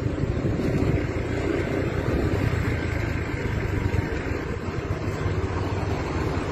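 Motor scooter engine running steadily while riding along, heard from the rider's seat.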